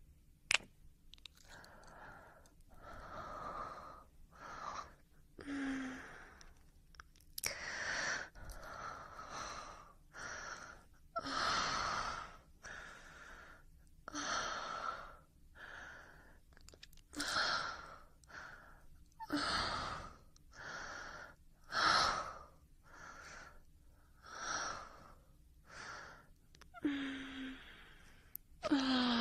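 A person breathing heavily and rhythmically, a loud breathy breath about once a second, with now and then a brief low voiced sound.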